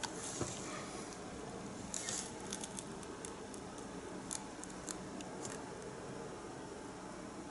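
Flat paintbrush working acrylic paint on a stretched canvas: faint scratchy brush strokes near the start and about two seconds in, then a scatter of light ticks and dabs, over a steady low hiss.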